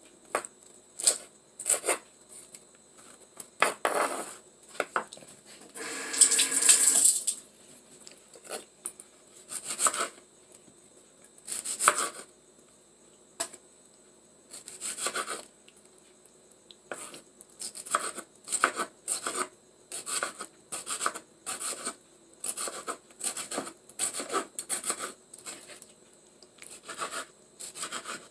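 Kitchen knife slicing tomatoes on a wooden cutting board: irregular knocks of the blade against the board, with one longer rasping noise about six seconds in.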